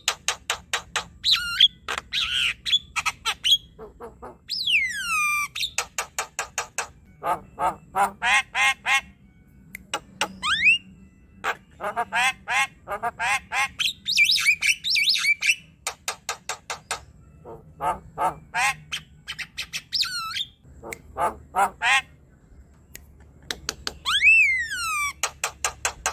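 Javan myna singing a long, varied song: fast runs of short clicking notes, several long whistles that rise and then slide down, and a stretch of harsh, higher squawky notes about halfway through.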